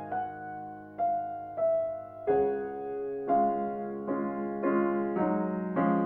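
Steinway grand piano played solo in a slow classical piece: melody notes and chords struck about once a second, each ringing on over the held lower notes, with a fuller chord and deeper bass about two seconds in.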